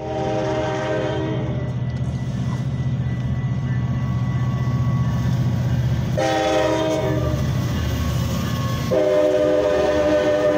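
Metra commuter train's locomotive horn sounding for a grade crossing as the train approaches: one blast ends about a second and a half in, another comes about 6 seconds in, and a third starts about 9 seconds in and holds. The low rumble of the oncoming train runs underneath.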